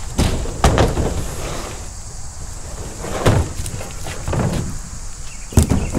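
Camping gear being unloaded from a pickup truck: a string of knocks and thumps with handling noise between them, about five in six seconds, the loudest near the end.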